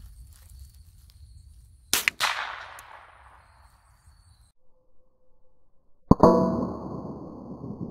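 A .22 LR rifle shot about two seconds in, its report trailing off. About six seconds in comes a second sharp crack, and a hanging steel target plate rings with several clear tones that slowly fade.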